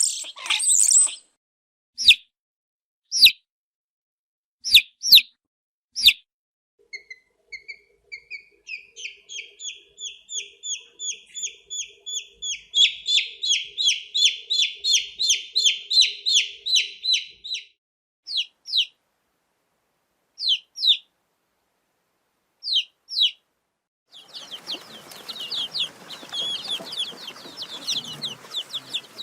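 Baby chickens cheeping in high-pitched peeps. First come scattered single peeps, then a long, quickening run of repeated cheeps. About 24 seconds in, many chicks peep continuously over a background hiss.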